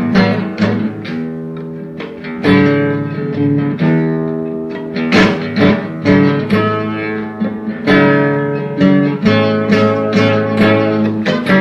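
Blues guitar playing an instrumental passage: plucked notes and struck chords that ring out and fade, with a strong chord about every two and a half seconds.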